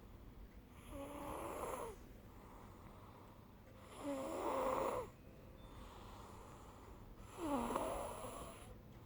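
Snoring: three loud snores about three seconds apart, with fainter breathing between them.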